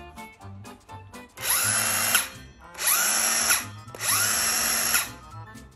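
Bosch GKS 18V-57 cordless circular saw's motor run with no load in three short trigger pulls, each a whine that rises in pitch as the blade spins up and stops after under a second.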